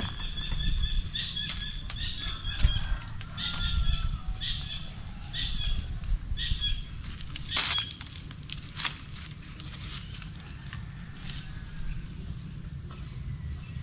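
Rural outdoor ambience: a steady high-pitched insect drone, with short, repeated bird chirps through the first half. There is a low rumble underneath and a single sharp click about eight seconds in.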